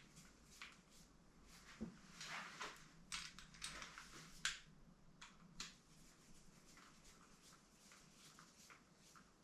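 Faint, scattered clicks and scratches of a screwdriver and small plastic and metal parts being handled as screws are done up on a plastic RC model kit chassis, with a sharper click about four and a half seconds in.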